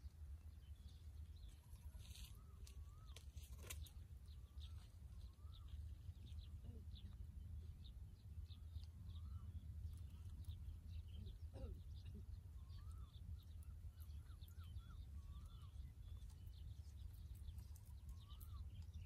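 Quiet outdoor ambience: a steady low rumble of wind, with faint short rising-and-falling chirping calls every second or so and scattered high ticks and chirps.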